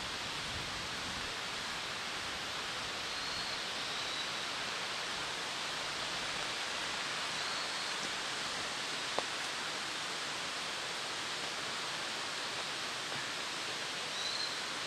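Steady outdoor hiss of forest ambience, with a few faint, short high chirps and a single small tick about nine seconds in.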